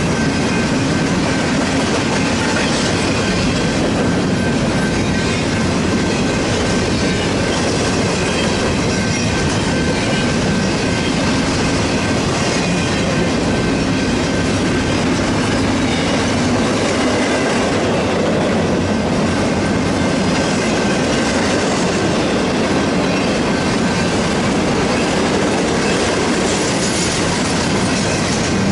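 Empty intermodal freight train rolling past, a loud steady rumble and rattle of wheels on rail with a thin, steady high tone of wheel squeal.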